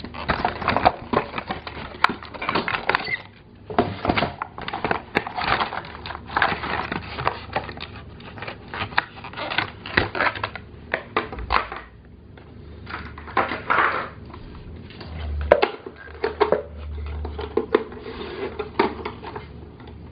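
Plastic toy food container and pieces being handled and lifted out of a box: irregular clattering, knocking and rustling.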